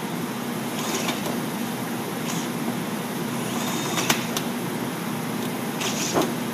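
Milwaukee cordless drill running steadily under load, driving a 1 3/4-inch bit through the metal of an explosion-proof junction box, with a few sharp scraping clicks from the bit as it cuts.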